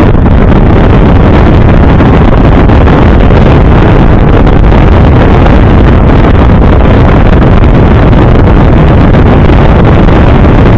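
Smart Roadster being driven, heard mostly as loud, steady wind buffeting on the microphone with the car's engine and road noise mixed in underneath.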